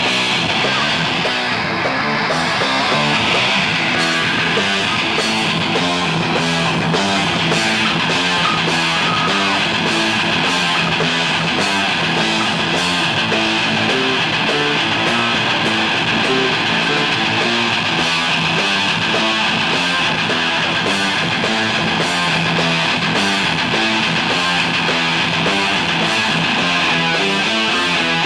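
Live rock band playing loud electric guitars and drums, a steady, unbroken passage of music.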